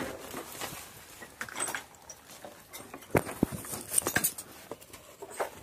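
Irregular footsteps, knocks and clacks on scattered wood and debris as someone picks their way through a cluttered shed, with a few sharper knocks about three and four seconds in.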